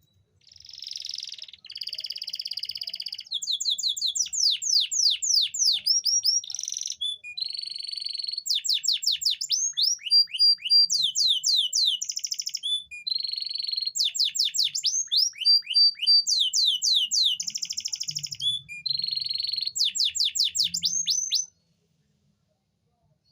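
Male domestic canary singing a long courtship song that alternates fast buzzing rolls with runs of quick falling whistles. The song cuts off abruptly near the end. This kind of song stimulates hen canaries to breed.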